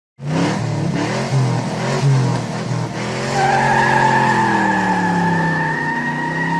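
A car engine revving unevenly, then from about three seconds in a long, steady tyre squeal over an engine note that slowly falls.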